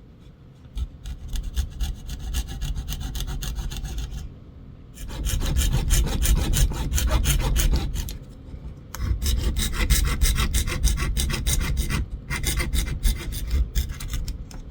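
Coping saw cutting out a pickup hole in a guitar pickguard, its thin tensioned blade rasping back and forth in quick strokes. The cutting comes in several runs, broken by short pauses.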